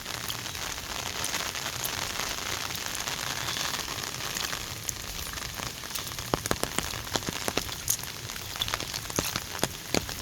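Heavy rain falling as a steady hiss; from about halfway, larger drops hit close by as many separate sharp taps.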